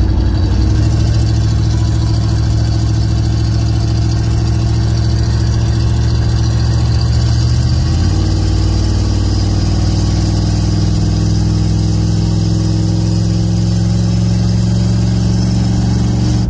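Engine and exhaust of an OBS Chevrolet pickup heard from inside the cab while driving: a loud, steady drone through a muffler with a hole in it. The engine note changes about halfway through.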